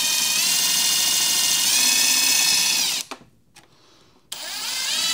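Kobalt cordless drill/driver running twice while driving screws for a cable clamp. The first run is a steady whine lasting about three seconds that shifts in pitch under load. The second, shorter run near the end rises in pitch.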